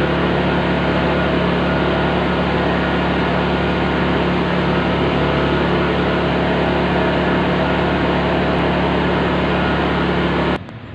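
Honda EU20i inverter generator's single-cylinder four-stroke engine running steadily after its carburettor was cleaned to cure stalling. The sound cuts off suddenly near the end.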